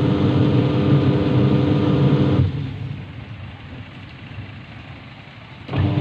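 Wash motor of a Polytron twin-tub washing machine running with a loud steady hum, cutting out about two and a half seconds in and starting up again near the end as the wash timer cycles it. The motor only ever turns one way and never reverses.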